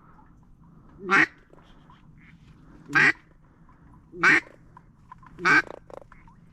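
Four loud, single mallard-type duck quacks, spaced about one and a half seconds apart.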